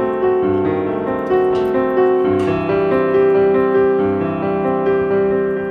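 Background piano music: a melody of sustained notes.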